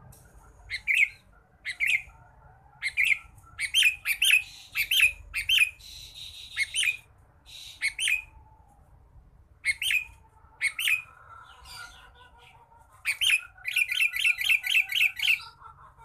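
Sooty-headed bulbul (kutilang) calling: sharp, short chirping notes given singly and in pairs, then a quick run of about seven notes near the end.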